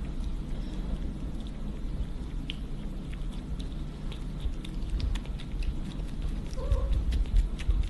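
Tiny kitten suckling milk from a feeding syringe: soft wet smacking clicks that come more often toward the end, over a low rumble. One faint short squeak near the end.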